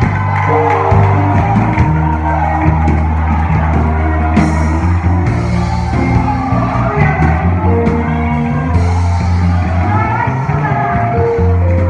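Live worship band music with singing, bass and drums.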